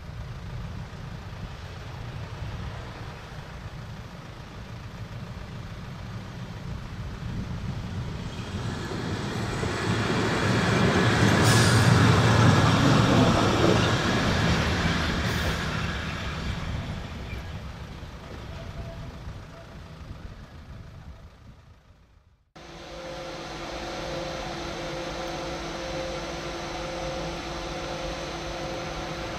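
A heavy vehicle passes close by, swelling to a loud peak about twelve seconds in and then fading away. After an abrupt break, a steady electric hum with two held tones follows from an electric locomotive standing at a station.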